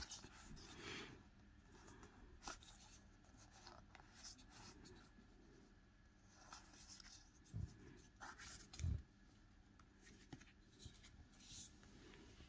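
Faint rustling and sliding of stiff paper tarot cards being handled and sorted by hand, with scattered light clicks and two soft low thumps in the second half.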